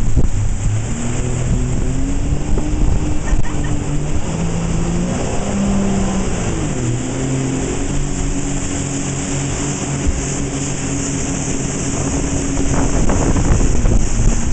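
Tow boat's engine running at speed under a rush of wind and churning wake water, its pitch shifting a few times and dipping then rising about halfway through.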